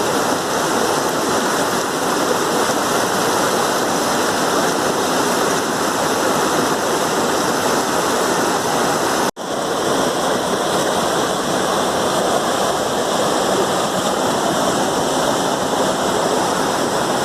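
Steady rush of water pouring over rock at a waterfall and natural rock water slide, breaking off for an instant about nine seconds in.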